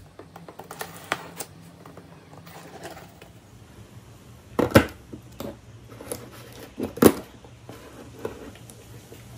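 Blender parts and packaging being handled: scattered clicks and light knocks, with two louder knocks about halfway through and again a couple of seconds later.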